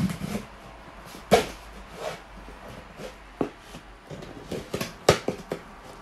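A cardboard shipping box being handled and its packing tape cut with a small blade: scattered knocks, taps and scratches against the cardboard, the sharpest about a second and a half in and about five seconds in. A brief low thump right at the start.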